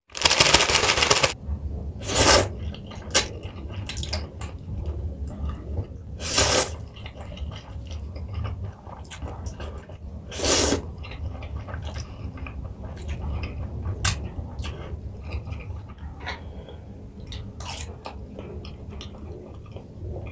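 Close-up eating sounds of spicy instant ramen: a plastic noodle packet rustling for about a second at the start, then three loud slurps of noodles about four seconds apart, with chewing and small utensil clicks between them and one sharp click about fourteen seconds in.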